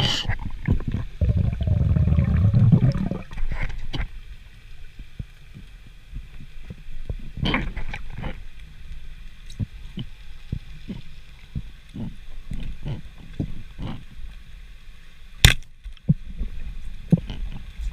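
Underwater sound picked up by a diver's camera: scattered muffled clicks and knocks from the diver's movement, with a low gurgling rumble lasting about two seconds near the start and one sharp click near the end.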